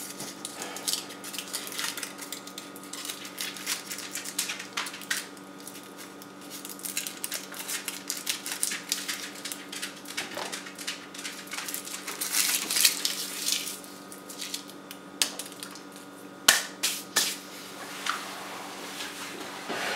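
Hands handling a mirrorless camera body and small parts: irregular small clicks, taps and rustling, with a louder stretch of rustling about twelve seconds in and a few sharp clicks near the end, over a steady electrical room hum.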